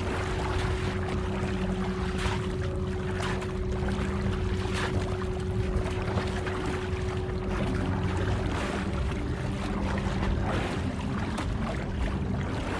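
Steady low rumbling ambience like wind and water, with a held low drone tone and occasional soft knocks or creaks.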